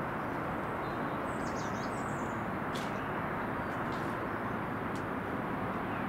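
Outdoor evening ambience: a steady rushing background noise, with a few faint high bird chirps about a second and a half in.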